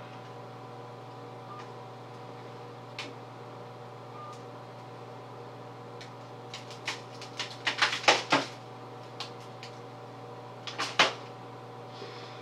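Steady background hum with handling noise: a run of crackles and rustles about halfway through and a shorter one near the end, as a pie crust and shaving cream are pulled off a face and dropped onto a plate.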